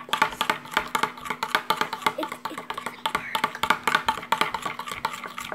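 Metal spoon stirring thick soap slime fast in a glass bowl, clinking and scraping against the glass in rapid, uneven clicks, several a second.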